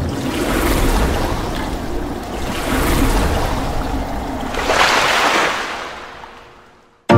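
Splashing, rushing water sound effect that swells three times and then fades out near the end.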